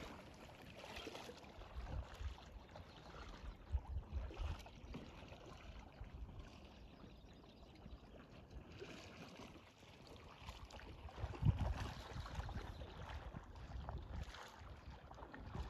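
Faint outdoor background noise: a light hiss with irregular low rumbles, briefly louder about eleven seconds in.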